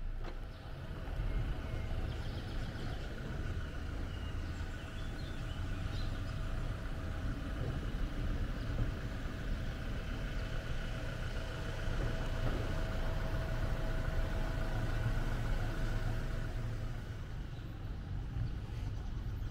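Steady low rumble of road vehicles, with a faint steady whine held over it that fades out near the end.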